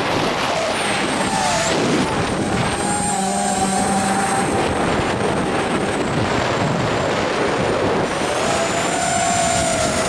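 ZMR250 quadcopter's motors and propellers whining, the pitch gliding up and down as the throttle changes, over a steady rush of wind and prop noise on the drone's onboard camera.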